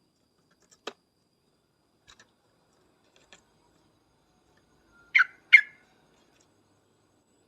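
Yellow-vented bulbul (trucukan) giving two short, loud call notes in quick succession about five seconds in, after a faint click and a few soft ticks.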